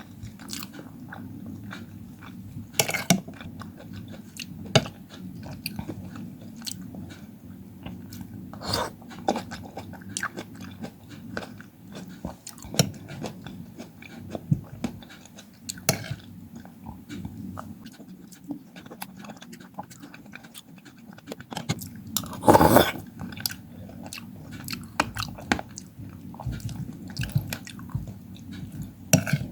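Close-miked ASMR eating of fruit: steady wet chewing with many sharp little bites and crunches scattered through it, the biggest bite about three quarters of the way in.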